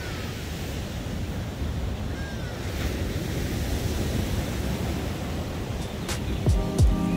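Ocean surf breaking and washing up a sandy beach, a steady rushing wash, with wind buffeting the microphone. Background music with a drum beat starts about six seconds in.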